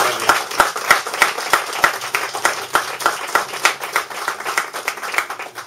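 A small audience applauding, one pair of hands close by clapping about three times a second; the applause thins and dies away near the end.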